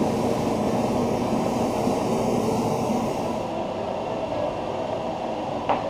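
Steady rumbling rush of a kitchen range hood's exhaust fan running over the hot stove, a little quieter and duller after about three and a half seconds. A short knock near the end.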